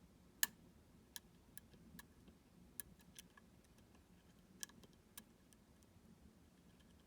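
Small sharp metallic clicks at irregular intervals, about eight of them, the loudest about half a second in: a lock pick working the pin stacks of a U-Shin Showa NX high-pin-count lock held under tension.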